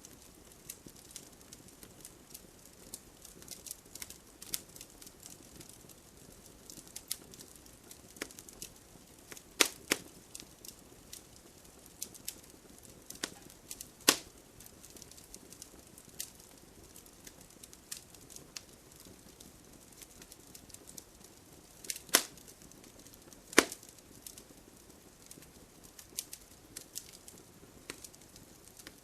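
Wood fire crackling: a steady run of small sharp crackles with a few much louder pops, two near the middle and two more about three-quarters of the way through.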